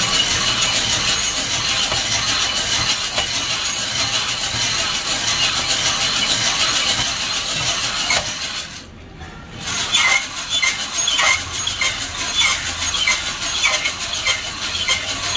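Coffee beans tumbling and rattling inside a hand-cranked wire-mesh drum roaster as it turns, over a steady hiss. The sound drops away briefly about nine seconds in, then the rattle returns as a regular clatter of about two knocks a second.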